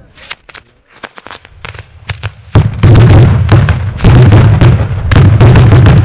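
Fireworks going off: a few scattered sharp cracks, then, about two and a half seconds in, a dense, very loud barrage of rapid bangs.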